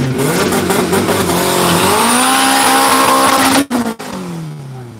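Drag car doing a burnout: the engine is revved hard with its rear tyres spinning and smoking, the engine note climbing steadily, then cut off suddenly about three and a half seconds in, with the revs falling away after.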